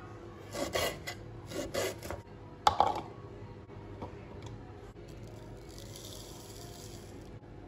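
A kitchen knife scraping and cutting ginger on a wooden cutting board, a few short strokes, then a sharp knock about two and a half seconds in. Near the end comes a soft hiss of salt being sprinkled onto ginger pieces in a plastic blender cup.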